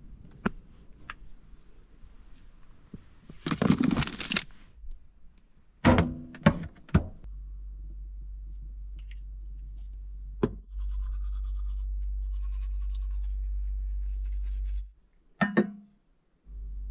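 A few sharp knocks and a short rustle, then a steady low hum that steps louder partway through, cuts out briefly near the end with one more knock, and comes back.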